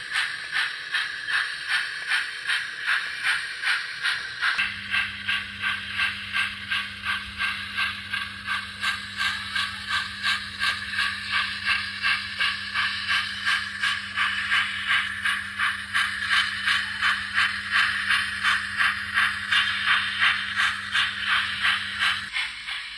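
Model geared logging steam locomotive's chuffing exhaust sound, a steady beat of a little over two chuffs a second. A steady low hum joins about four and a half seconds in and stops just before the end.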